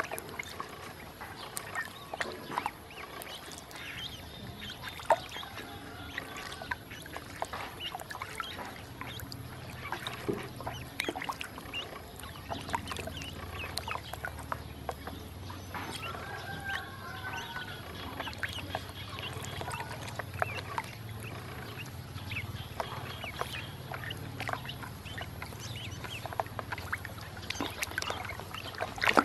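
Ducklings dabbling and paddling in a shallow plastic basin of water: many small splashes and bill-taps, with a few short peeping calls partway through.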